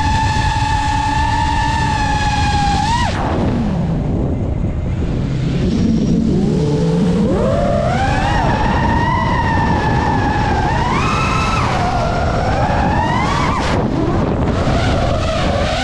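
FPV drone's motors whining at a steady high pitch, then dropping sharply to a low hum about three seconds in as the throttle is cut for a dive. The pitch climbs back up over the next few seconds and wavers up and down as the throttle is worked.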